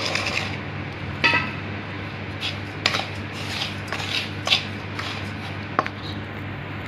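A wooden spatula and a hand stirring and scraping dry roasted semolina and sugar in a steel bowl, with scattered short scrapes and clinks against the bowl, over a steady low hum.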